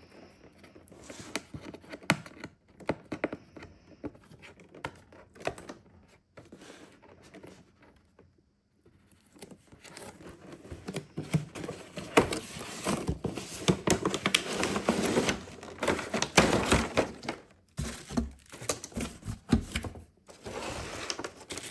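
Box and packaging of a small RC boat being opened and handled by hand: irregular rustling with scattered sharp clicks. It goes nearly quiet about six to nine seconds in, then the handling gets busier and louder for several seconds.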